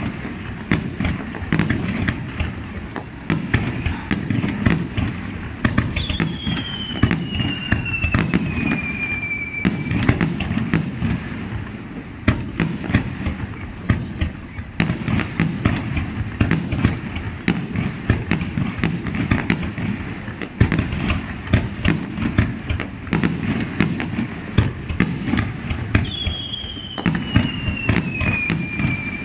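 Fireworks display: a dense, continuous run of aerial shells bursting with sharp cracks and booms. A long whistle falling in pitch sounds twice, about six seconds in and near the end.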